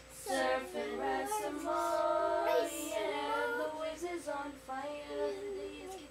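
A young child singing a song in a high voice, with a long held note about two seconds in.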